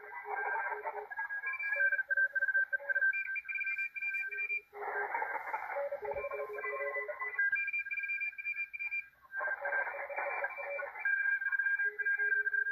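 A 40-metre amateur-radio Morse code (CW) pileup heard on a Malachite DSP SDR receiver: many stations keying steady tones at different pitches, on and off and over one another, with patches of hiss that come and go. The signals sit too close together for the receiver's CW decoder to make sense of them.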